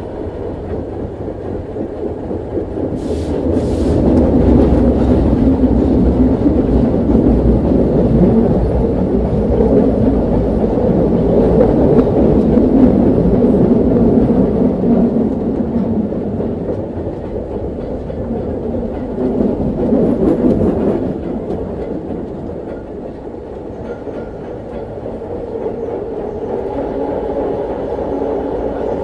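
A 1920s Berlin U-Bahn type AI railcar heard from inside the car while it runs along the track, giving a deep steady rumble. The rumble grows louder about three seconds in, with a few sharp clicks as it does, stays loud for some ten seconds, then eases off.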